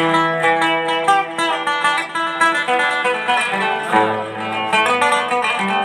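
Instrumental music: a plucked string instrument playing a quick run of melody notes, with a deeper sustained note coming in about four seconds in.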